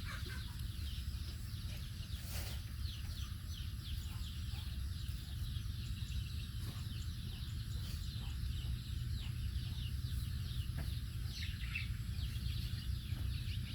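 Many short, high-pitched, falling squeaks and peeps from small young animals, coming thick and fast over a steady low rumble.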